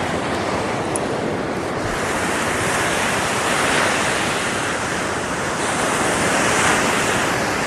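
Ocean surf breaking and washing up the beach, a steady rush that swells twice, about halfway through and again near the end.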